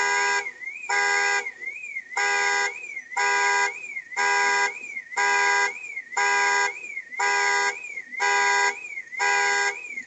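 Car alarm going off: a horn blast about once a second over a continuous warbling siren tone that rises and falls about twice a second.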